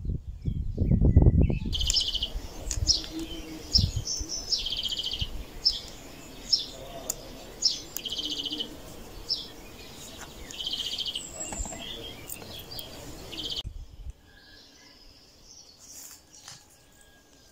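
Garden songbirds singing and calling: repeated short, high chirps and rapid trills, one after another, that stop suddenly near the end, leaving a quieter stretch with a few faint calls. A low rumble on the microphone comes first, in the opening second or two.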